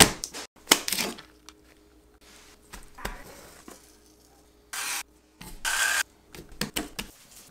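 A raw steak slapped down onto a wooden cutting board with a sharp hit, followed by a few light taps. Seasoning is then sprinkled over the meat, with two short hissing bursts around five and six seconds and a few more taps near the end.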